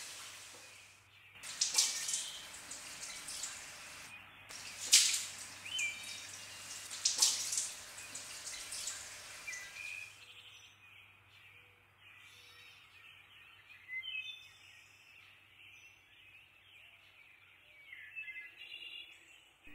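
Water dripping in slow, separate drops, each a sharp splash with a short high ping, over a low steady hum. About halfway through the drops stop and it falls quieter, leaving only faint high chirps.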